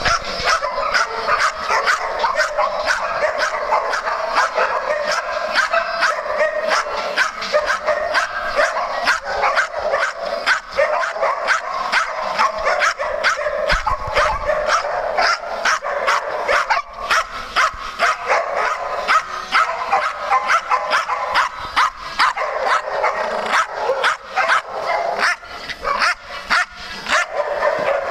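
A large group of dogs barking nonstop, many barks overlapping in quick succession.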